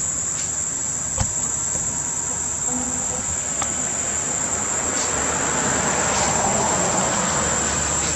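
Steady high-pitched drone of insects, with a rushing noise that swells over the second half and a single click about a second in.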